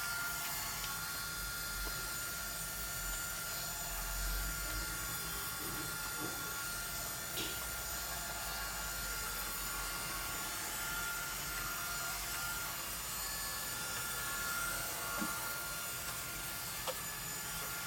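iRobot Roomba 971 robot vacuum running: a steady motor whir with a thin high whine, and a few faint ticks.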